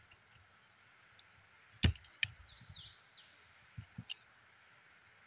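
Metallic clicks from an unloaded M1911A1 9mm pistol being handled. The loudest is one sharp click a little under two seconds in. A second click and a short metal scrape follow, then a quick run of clicks near four seconds.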